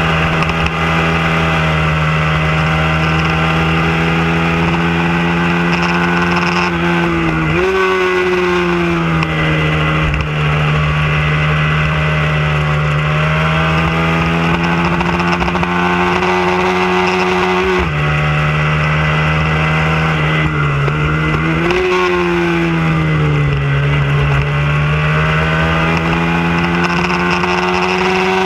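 Hyosung V-twin sport bike engine under hard riding, heard from on board with wind rush over it. Its pitch climbs slowly through each gear and falls back at the gear changes, with quick jumps in revs about 8 s in and again about 22 s in.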